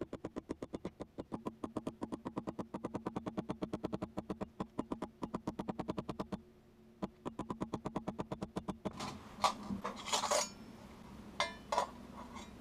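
Hammer tapping a center punch into thin stainless steel sheet through a paper template, rapid even strikes at about seven or eight a second, breaking off briefly about halfway and resuming for a couple of seconds. Near the end a few light metallic clinks as the thin punched sheets are handled.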